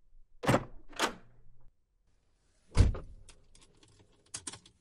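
Car door sound effects: two quick clunks within the first second, then a door slamming shut a little under three seconds in, followed by a run of small clicks and rattles.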